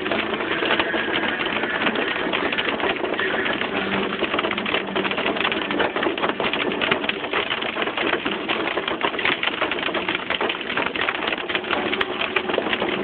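Hail pelting the roof and windshield of a Ford Edge, heard from inside the cabin: a dense, fast, unbroken clatter of countless small impacts.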